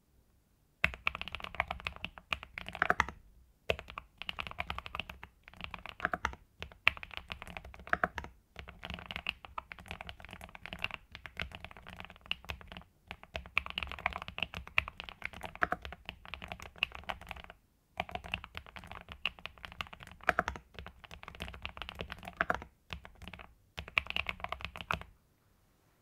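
INFI75 mechanical keyboard with MMD Cream linear switches and Domikey+GLOVE Aventurer keycaps being typed on in fast runs of keystrokes, broken by short pauses. The typing starts about a second in and stops shortly before the end.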